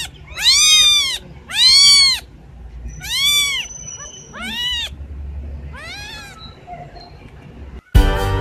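Kittens mewing: a string of high, loud mews, each rising then falling in pitch, about six in all, the later ones fainter and shorter. Music starts abruptly near the end.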